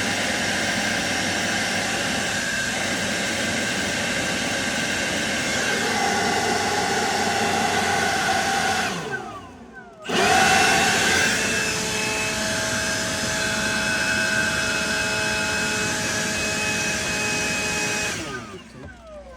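Milwaukee M18 Fuel cordless blower running at full speed with a steady rush of air and motor whine. About nine seconds in it is let off and winds down, then is squeezed again and comes straight back up. Near the end it is released and spins down with a falling whine.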